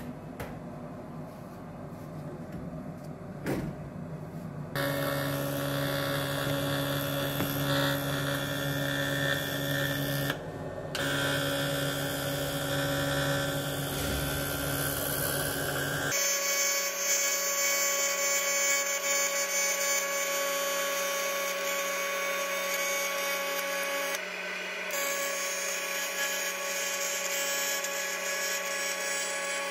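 TIG welding arc on an aluminium cylinder head, giving a steady hum that starts about five seconds in, after a quieter lead-in. The arc breaks off briefly about ten seconds in and again near 24 seconds as the welder pauses. The weld is building up a spot in the head that had worn through.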